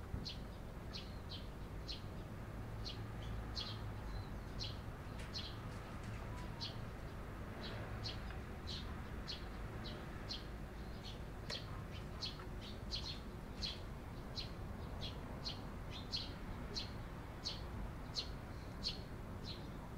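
Eurasian tree sparrow chirping over and over: short, sharp chirps at about two a second, over a low steady rumble.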